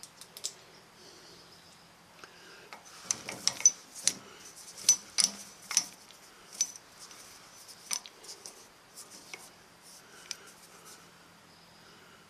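Twist drill in a mill cutting into an aluminium motorcycle cylinder head, giving irregular sharp metallic clicks and tinkles as chips break off, busiest a few seconds in, over a faint steady hum.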